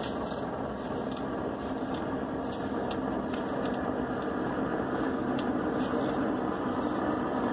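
Helicopter circling at a distance: a steady drone of engine and rotor, growing slowly louder.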